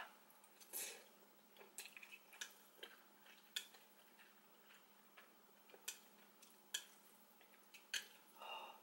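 Near silence broken by faint, scattered clicks of eating: wooden chopsticks tapping a plate and the mouth sounds of chewing spicy ramen noodles, with a short breathy exhale near the end.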